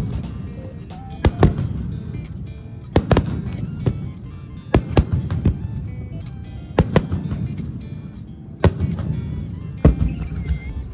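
Aerial fireworks bursting in a display: sharp bangs, often in close pairs, about every couple of seconds, each followed by a rolling rumble, with music playing underneath.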